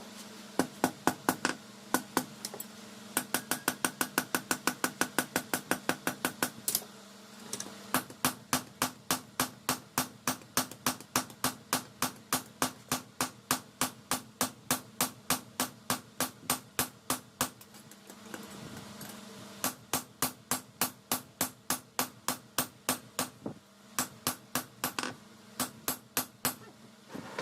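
Hammer blows ringing on steel at an anvil, about four strikes a second in long runs with short pauses between them: the steel blade stock is being forged from a car leaf spring. A steady low hum runs underneath.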